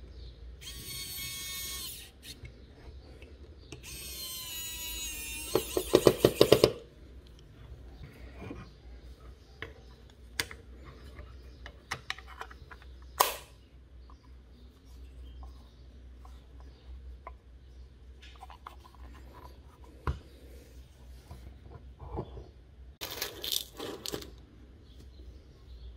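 Small electric screwdriver driving a screw into the revolver's grip frame: a short whir, then a longer whir that rises in pitch and ends in a rapid run of loud clicks. After that, small clicks and taps of the gun's parts being handled on a table.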